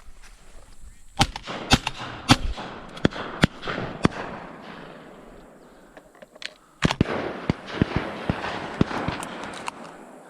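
Shotguns firing at passing doves, many shots in quick succession in two flurries, the first about a second in and the second about seven seconds in.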